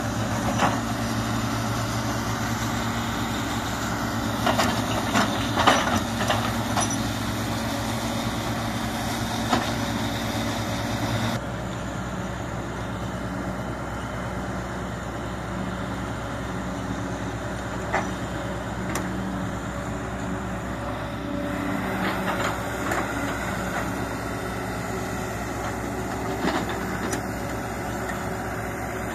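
Sumitomo hydraulic excavator's diesel engine running steadily under load as it works in deep mud, with scattered knocks and clanks from the machine, most around a fifth of the way in and again near the end.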